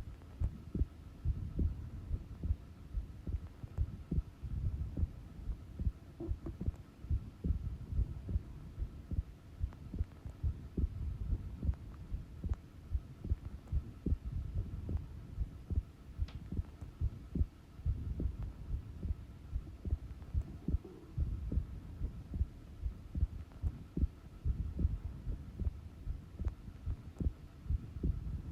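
Human heart sounds at rest: a normal heartbeat, its lub-dub thumps repeating in a steady, even rhythm, over a faint steady hum.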